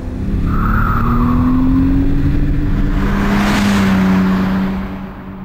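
BMW Z3 roadster's inline six-cylinder engine running steadily under load, with a swell of rushing noise as the car goes by about three and a half seconds in, then fading away near the end.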